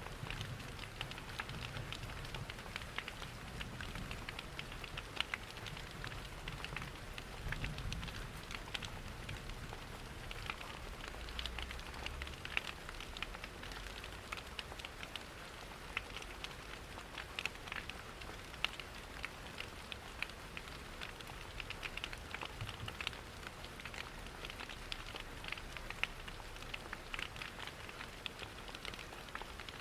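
Steady rain pattering, layered with the crackle and small pops of a wood fire, over an uneven low rumble.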